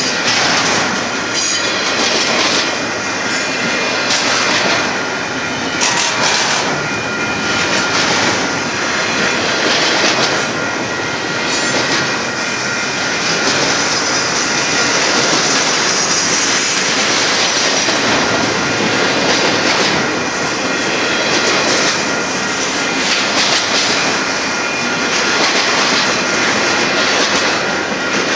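Double-stack intermodal container cars of a freight train rolling past: a loud, steady rumble of steel wheels on rail with irregular clickety-clack from the rail joints, and a thin steady whine running through it.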